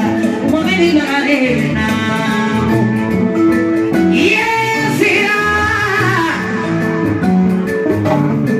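Music with a singing voice over instruments.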